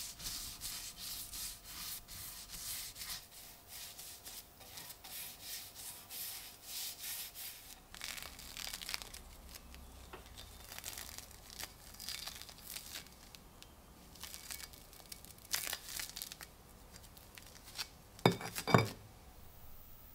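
A brush rubbing oil onto a wooden ax handle in quick scratchy strokes, about two or three a second. Then scattered rubbing and handling sounds, and two loud knocks close together near the end.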